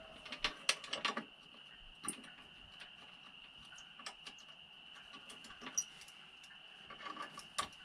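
Small metallic clicks and taps from bolts and hand tools being handled while a CDI box is bolted onto an ATV frame, with a cluster in the first second and another near the end. A faint steady high-pitched tone runs underneath.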